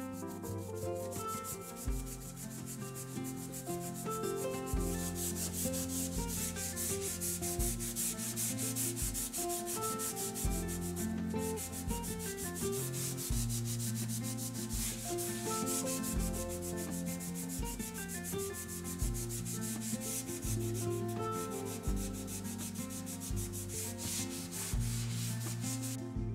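A cloth rubbing back and forth on a painted wall, scrubbing off stains, over soft background music with held chords and a low note about every two seconds. The rubbing breaks off briefly about eleven seconds in.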